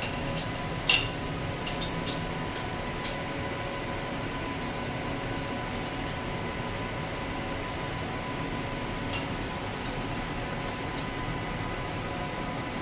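A few sharp metallic clinks from fastening a part down on a CNC machine, the loudest about a second in and a smaller one near nine seconds, over a steady hum.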